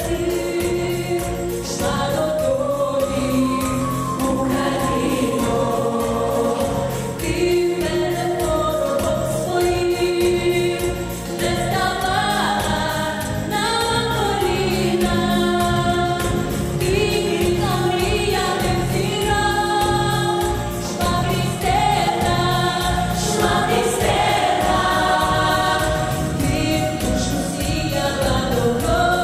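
Pop vocal ensemble of mostly young women singing into handheld microphones, lead voices and the group in harmony, amplified through the hall's speakers over music with a steady beat.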